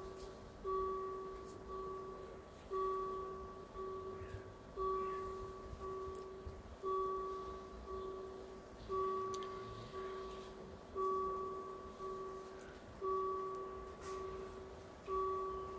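Level crossing warning bell ringing with the red light on, striking about once a second, every other stroke louder, each stroke dying away. It is the warning that the barriers are closed for an approaching train.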